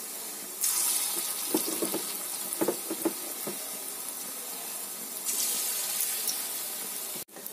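Palm-fruit fritter batter frying in hot oil in a wok: a steady sizzle that turns louder about half a second in as another dollop of batter goes in, with a few small pops, and swells again around five seconds in.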